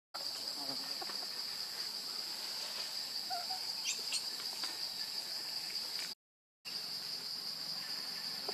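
Insects droning in the forest: a steady high-pitched buzz that breaks off for a moment about six seconds in. A few faint chirps come near the middle.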